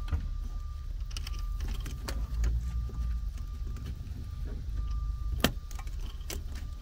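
Handling noise of gloved hands working a spiral-wrapped power cable through a rubber grommet: scattered light clicks and rubbing, with one sharper click about five and a half seconds in. Underneath is a steady low rumble and a faint high tone that comes and goes.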